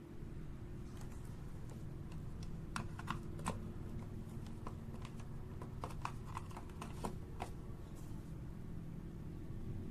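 Irregular light clicks and taps, a dozen or so in the first three quarters, over a steady low hum.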